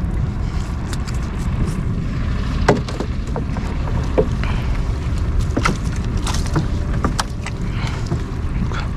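Gill net being hauled hand over hand into a small wooden boat, with scattered light clicks and knocks from the wet mesh and the hull. Under it runs a steady low rumble of wind on the microphone.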